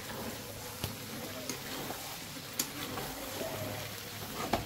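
Chicken and spice masala cooking in a pan with a steady low sizzle, broken by a few light clicks of utensil on pan.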